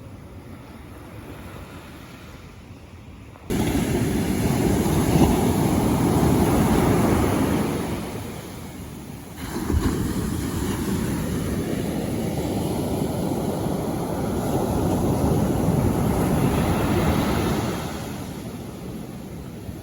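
Sea waves surging and rushing onto the shore, with wind buffeting the microphone. The rush jumps suddenly louder about three and a half seconds in, falls back briefly, rises again, and eases near the end.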